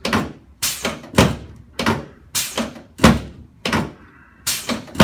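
A run of sharp thumps, about two a second and unevenly spaced, from a chiropractic table during a prone adjustment.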